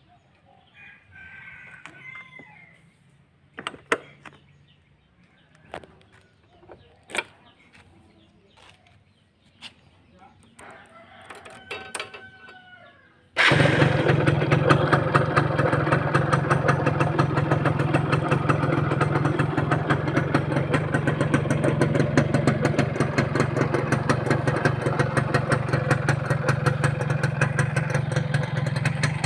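A rooster crows and a few sharp clicks and knocks sound; then, about halfway through, the Yamaha F1ZR's two-stroke single-cylinder engine starts suddenly and settles into a steady, rapidly pulsing idle. It is a cold start after months of standing unused.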